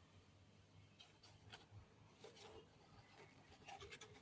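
Near silence, with a few faint scratchy rustles and clicks.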